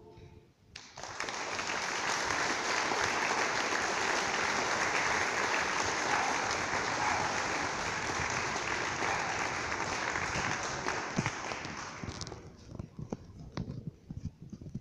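A choir's held final chord ends at the very start, then an audience applauds steadily for about eleven seconds. Near the end the applause thins to a few scattered claps.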